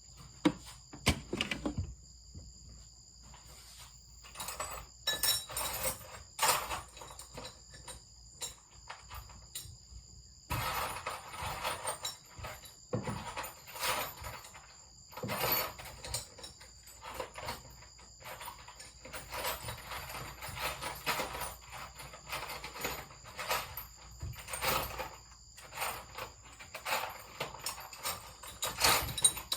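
Irregular knocks, clinks and rattles of hard objects being handled, over a steady high-pitched whine.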